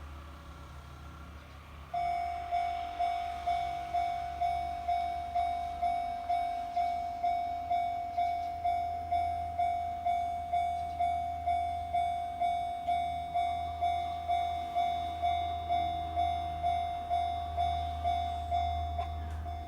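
Japanese railway level-crossing warning bell starting to sound about two seconds in, a steady electronic ding-ding at about two strikes a second, signalling that a train is approaching and the crossing is closing. A low steady rumble runs underneath.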